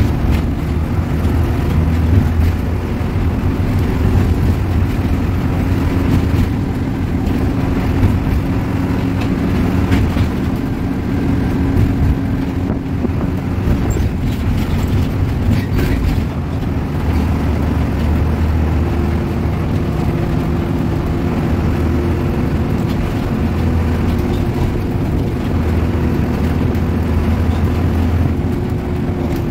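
Coach bus engine running hard at highway speed, heard from inside the cab, with steady road and tyre noise. The engine note shifts in pitch a couple of times as the bus changes speed.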